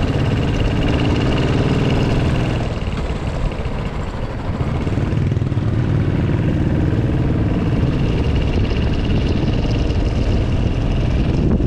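Motorcycle engine running steadily on the move, with wind rushing over a helmet-mounted camera. The sound dips for a couple of seconds about three seconds in, then picks up again.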